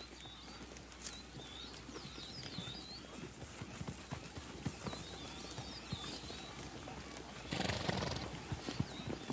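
Zebra hooves clopping on hard ground as a herd moves, with high chirps over the top and a short noisy burst just before the end.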